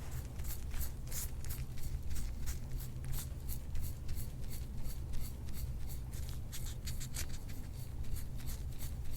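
Quick repeated rubbing or scraping strokes over skin, about four a second, as soft-tissue work meant to bring up bruising, over a steady low hum.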